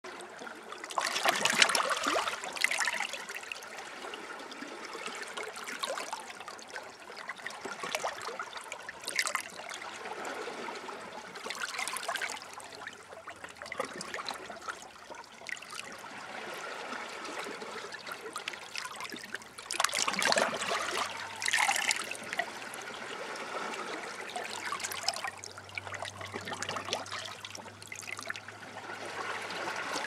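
Shallow seawater sloshing and trickling over shore rocks in irregular surges, with the biggest washes near the start and about two-thirds of the way through.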